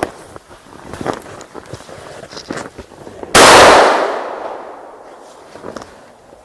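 A single close gunshot from a hunting gun about three seconds in, very loud, its echo dying away over a second or so. Light rustling and clicks of handling are heard around it.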